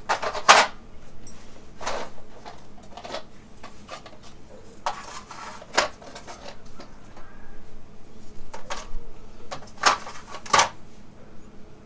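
Plastic socket-set trays being handled: a run of knocks and clatters as tool cases are rummaged for off the table and set down on the wooden tabletop, with a scuffling rustle around five seconds in.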